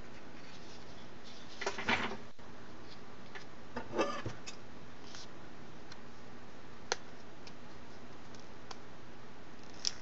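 Small handling sounds at a workbench as a length of heat shrink tubing is picked up and handled: a couple of short rustles and a few sharp clicks over a steady low hiss.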